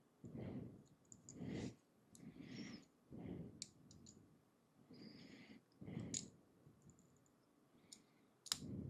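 Small plastic LEGO pieces being handled and pressed together: soft rubbing and shuffling with a few small, sharp clicks.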